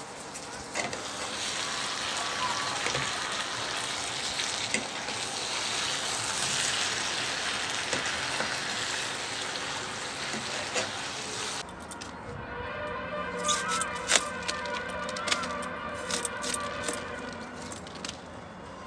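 Meat being dry-fried in a frying pan on an induction cooktop, sizzling steadily as it is stirred with a spatula. About twelve seconds in the sizzling stops abruptly, leaving a quieter background with scattered sharp clicks and taps.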